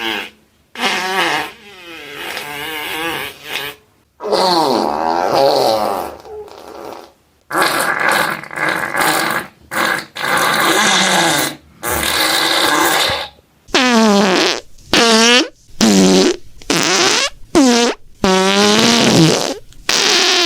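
A string of fart sounds, one after another with short gaps. The pitch wavers and slides in each: longer ones in the first half, then a quick run of short ones with the pitch dropping and rising in the second half.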